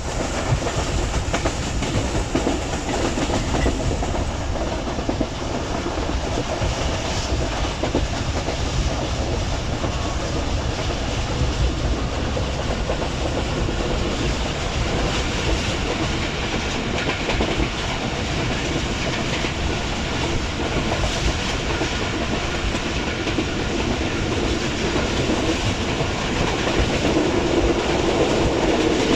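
Pakistan Railways passenger coach running along the line, heard from inside the coach: steady rumble and rattle of the wheels and running gear on the track, with clickety-clack over the rail joints.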